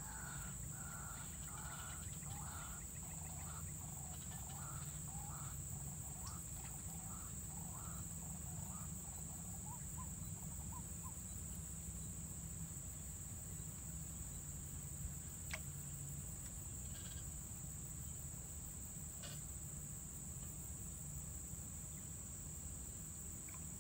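Steady high-pitched chorus of insects trilling, with an animal calling in a run of short repeated notes that fade out about ten seconds in. A couple of faint clicks come later.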